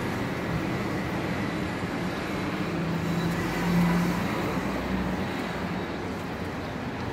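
Street traffic: a steady rumble of passing cars and tyres on the road, with one vehicle's engine hum growing louder around the middle and then fading.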